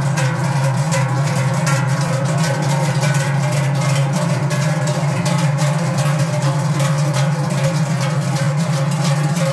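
Many large Swiss Treicheln (hammered sheet-metal cowbells), carried in pairs on shoulder yokes, ringing together as the bell carriers walk in step: a dense, steady clanging over a deep drone.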